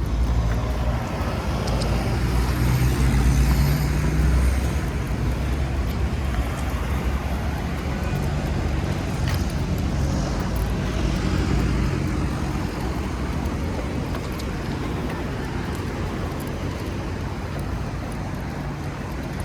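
Road traffic passing steadily, with one vehicle passing loudest about three to four seconds in.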